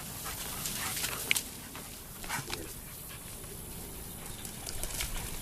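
A dog making a few short sounds.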